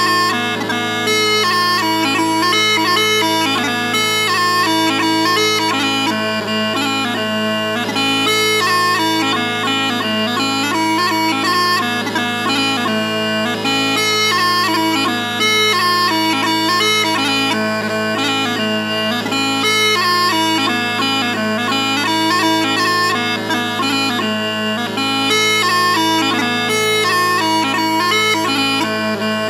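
Smallpipes playing a tune: steady drones holding one chord underneath while the chanter runs through a quick melody of short, changing notes.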